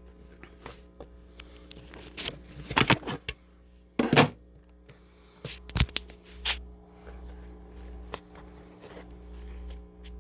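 Scattered clicks, taps and short rustles of hands handling a laptop and small repair tools, with a few sharper knocks near the middle, over a steady low electrical hum from a stereo speaker.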